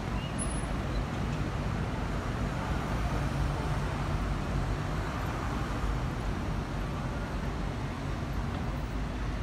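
Steady city road traffic: motor vehicles running past with a continuous low rumble.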